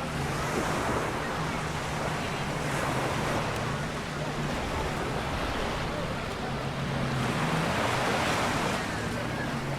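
Small waves breaking and washing up the shore, swelling twice, with wind on the microphone and a faint low steady hum underneath.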